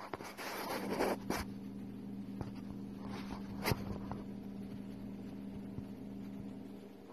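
Loose sand rustling and scraping as a viper shifts its coils and works itself down into the sand, loudest in the first second and a half, with a sharp click a little past the middle. A steady low electrical hum runs underneath.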